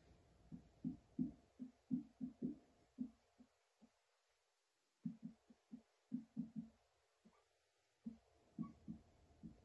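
Dry-erase marker writing on a whiteboard: faint, short, dull strokes in quick irregular runs, with pauses about four and seven seconds in.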